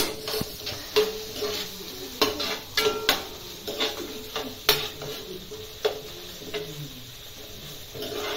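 Metal spatula stirring food in a metal frying pan: irregular clacks and scrapes against the pan, roughly one a second, over a steady frying sizzle.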